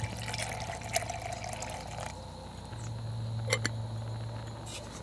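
Water pouring from a bottle into a stainless steel camp pot, refilling it for a second boil. A short clink comes about three and a half seconds in as the metal lid goes on.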